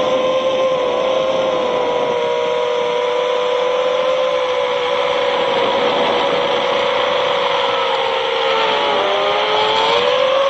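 FPV quadcopter's electric motors and propellers whining at a steady pitch, several close tones together over a rushing hiss. The pitch dips briefly about nine seconds in, then rises again as throttle comes back.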